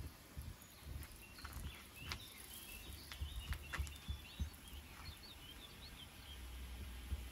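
Faint hiss of a garden hose nozzle spraying a fine mist of water onto a stone wall, under a low rumble that comes and goes and a few light clicks. A bird chirps in short quick notes from about two and a half to six seconds in.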